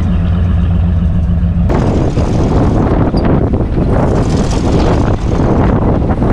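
Truck engine running steadily, then about two seconds in the sound changes suddenly to a loud, rough rumble of the truck driving over uneven ground with wind on the microphone.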